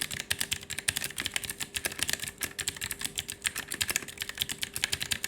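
Fast typing on a mechanical keyboard with clicky blue switches, the Aula F3287: a rapid, uneven run of sharp key clicks, many per second, over a faint steady hum.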